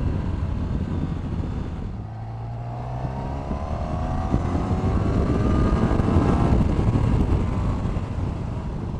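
Honda VFR1200X Crosstourer's 1200cc V4 engine pulling on the move under heavy wind rush on the microphone, its note climbing steadily as the bike accelerates from about two seconds in, then easing off near seven seconds.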